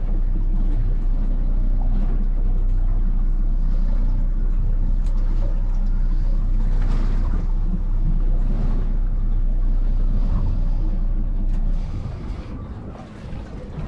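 Boat engine idling with a steady low rumble, which drops away about twelve seconds in.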